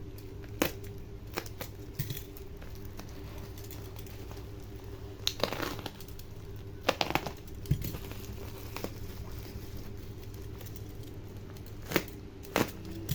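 Plastic parcel packaging crinkling and tearing in short, scattered bursts as it is unwrapped by hand, with a steady low hum underneath.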